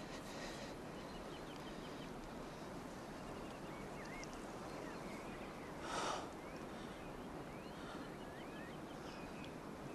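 Quiet outdoor ambience: a steady background hiss with faint, distant birds chirping now and then, and one short breathy whoosh about six seconds in.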